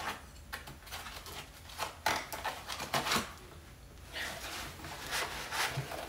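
Cardboard packaging being handled: irregular rustles, scrapes and small knocks as metal bathroom hardware is set back into its cardboard box tray.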